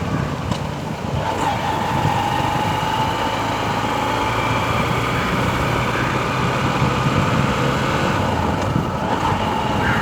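Honda Livo 110cc single-cylinder motorcycle engine running steadily while being ridden, mixed with wind and road noise; a steady whine sets in about a second in and holds.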